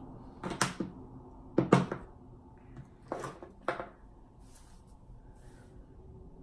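Several sharp clicks and knocks of makeup containers being picked up, opened and set down on a table while a powder is got out, the loudest about two seconds in.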